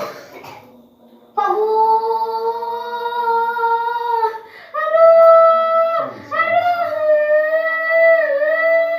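A patient's high-pitched wailing: three long drawn-out cries, each held for one to three seconds and falling in pitch at its end, starting after a short quiet gap about a second in.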